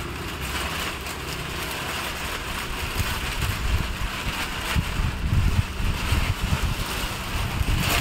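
A thin polythene cover rustling and crinkling as it is lifted and pulled off a refrigerator, with wind buffeting the microphone in low gusts from about three seconds in.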